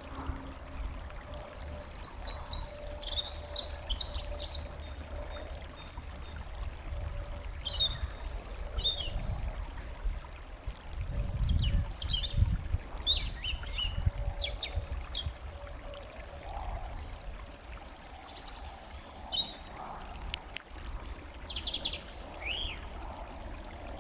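Small songbirds chirping and calling in short, high notes scattered throughout, over a steady low rumble that swells about halfway through.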